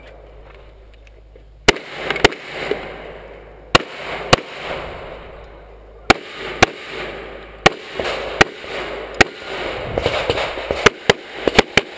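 Pistol shots fired in a timed run, about fifteen in all: the first nearly two seconds in, then pairs of shots with pauses between them, quickening into a fast string near the end.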